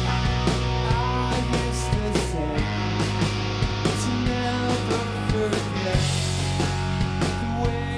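Live indie rock band playing: electric guitar, electric bass and drum kit, with steady drum hits over sustained bass notes.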